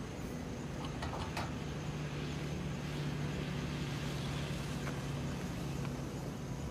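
Toyota Fortuner SUV driving along a dirt track, its engine a steady drone.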